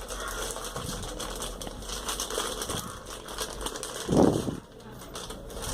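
Plastic packaging rustling and crinkling with small clicks as a small router is unwrapped and handled by hand. A short, louder low call sounds about four seconds in.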